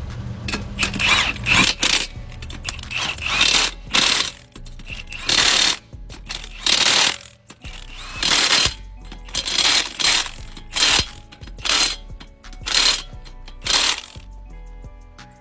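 Impact gun driving a torque stick in a series of short bursts about a second apart, hammering wheel lug nuts tight; background music underneath.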